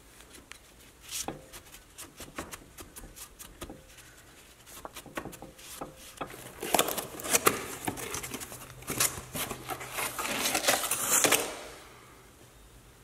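Scrubbing and scraping on the steering knuckle's metal hub mounting face as the dirt is cleaned off, mixed with scattered metallic clicks and knocks from handling the hub parts. The scrubbing is densest and loudest past the middle and stops about a second before the end.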